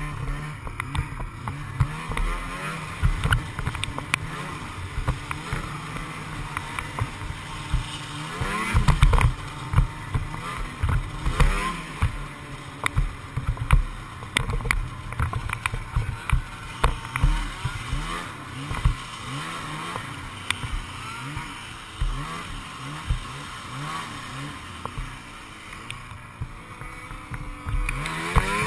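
Snowmobile engine running under load, its revs rising and falling as the sled rides over rough, tracked snow, with frequent knocks and bumps from the sled. The revs climb sharply near the end.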